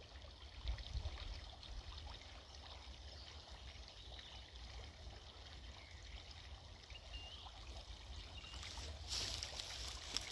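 Small creek trickling faintly, with a low rumble underneath. About a second and a half before the end, a louder rustling starts, like steps or movement in dry grass.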